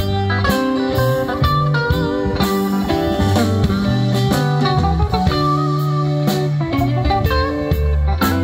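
Live rock band playing an instrumental passage: electric guitars over bass, drums and keyboard.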